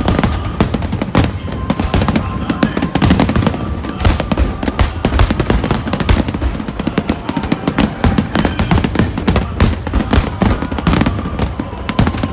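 A dense barrage of aerial fireworks: many bangs a second, overlapping one another over a continuous low rumble.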